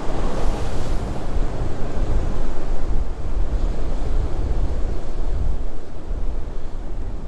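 Strong wind buffeting the microphone in a steady low rumble, over ocean surf washing in below.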